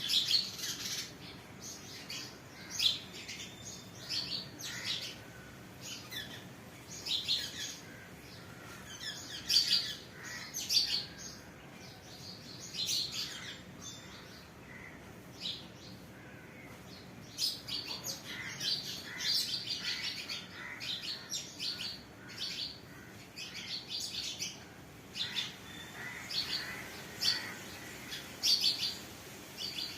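Small birds chirping: many short, high calls repeated irregularly throughout, some in quick runs of several notes.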